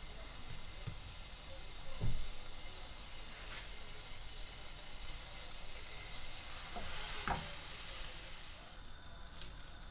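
Butter sizzling under burger bun halves toasting cut side down in a hot non-stick pan, with a couple of soft knocks from handling the bun. The sizzle thins near the end.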